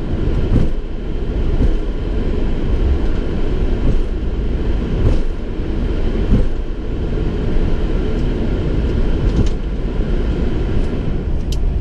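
Flight-deck noise of a Boeing 737-700 taxiing: a steady low rumble and hiss from its CFM56 engines at idle and the cockpit air, with a few soft knocks as the aircraft rolls over the taxiway.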